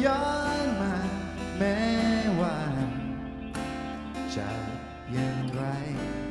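A male singer singing live into a microphone, accompanying himself on a strummed acoustic guitar.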